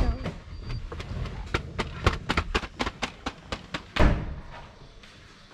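A car's rear door knocked open from inside, then a run of quick clicks and rustling as someone climbs out, and a loud thump about four seconds in as the door is slammed shut.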